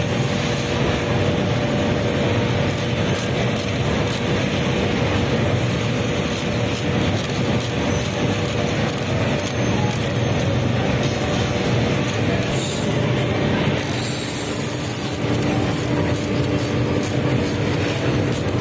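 A steady workshop din with a continuous hum under it, and the dense rattle and clink of coiled glass bangles being handled and rubbed against one another.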